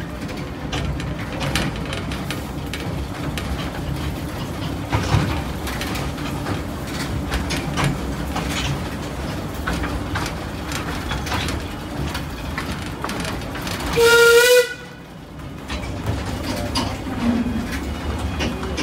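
Narrow-gauge steam train running, a steady rumble with irregular clicks from the wheels on the track. About fourteen seconds in, the locomotive's whistle gives one short blast, the loudest sound here.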